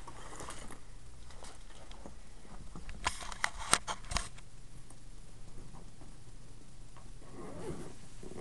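Handling noise from a packed suitcase and the camera being moved: soft rustling, then a quick run of sharp clicks and knocks about three to four seconds in.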